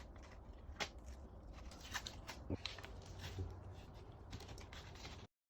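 Faint handling noises: soft rustling and a few light clicks and taps, cutting to total silence just before the end.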